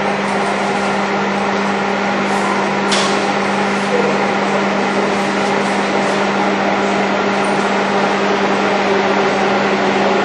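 Electric commuter train, car 9207, rolling slowly into an underground station platform: a steady rumble of wheels and running gear with a constant low hum, echoing off the station walls. A short click about three seconds in.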